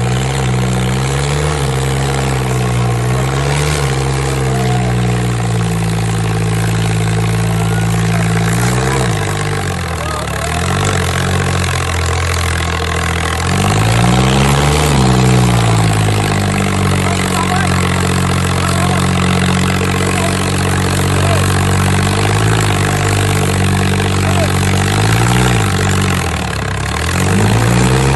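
Diesel tractor engine running hard under load while the tractor is held up on its rear wheels, black smoke pouring out. Its pitch dips and climbs back several times, most deeply about halfway through, as the engine bogs and is revved again.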